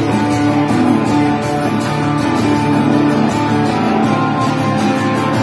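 Acoustic guitar strummed steadily while an electric guitar plays lead over it.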